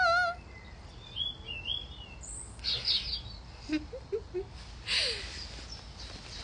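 Small birds chirping and twittering in short scattered calls, just after a held, wavering sung note ends.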